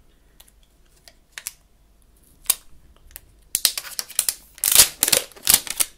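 Clear protective plastic film being peeled off the back of a new iPhone 7: a few faint ticks and rustles at first, then, from about three and a half seconds in, a dense run of loud crackling as the film comes away.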